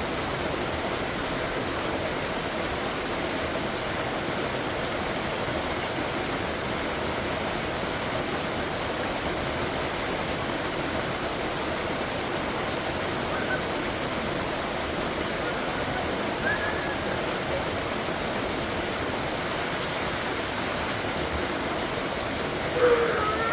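Waterfall: a steady, unbroken rush of falling water. Just before the end a short pitched sound cuts in above it.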